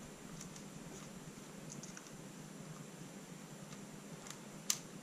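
Faint clicks and handling noise from a small plastic tripod quick-release clip being screwed by hand into a camera's tripod socket, with one sharper click near the end.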